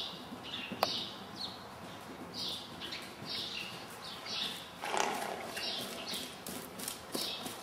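Welsh pony's hoofbeats on the soft footing of an indoor arena as it moves under a rider, a short high scuff repeating about every half second, with one louder burst of sound about five seconds in.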